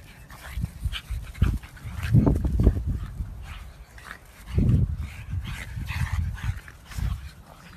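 Two pugs play-fighting, making dog play noises and scuffling. The loudest bursts come about two seconds in and again near five seconds.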